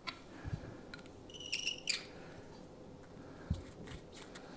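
Quiet handling of .270 Winchester brass cases and a hand chamfering tool at a bench. A soft knock as a case is set into a wooden loading block, light clicks of brass, and a brief high metallic ringing chirp about a second and a half in. Another soft knock comes near the end.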